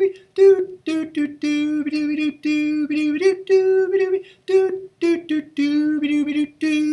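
A single voice singing a melody unaccompanied, in short syllables that step between two or three notes. It is the high choir part being demonstrated for singers to sing along to.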